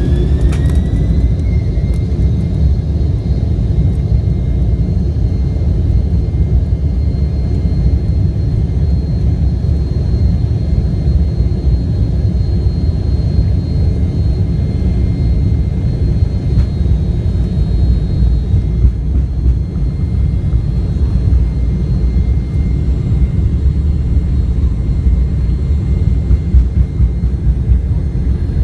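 Jet airliner engines spooling up: a whine rises over the first couple of seconds and then holds steady above a heavy, constant low rumble, as at takeoff thrust.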